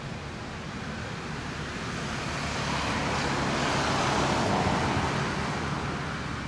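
A motor vehicle passing by: a steady rush of road noise that swells to its loudest about four to five seconds in, then fades.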